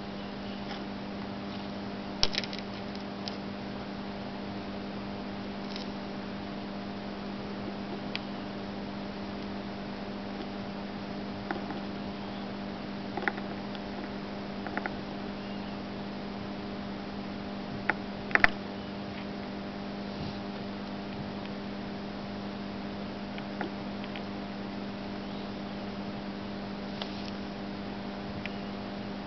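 Steady electrical hum with several tones, strongest at a low drone. A dozen or so faint, sharp clicks and ticks come and go over it, from fingers picking tiny LED dies off a COB LED board. The loudest clicks come about two seconds in and as a quick pair about eighteen seconds in.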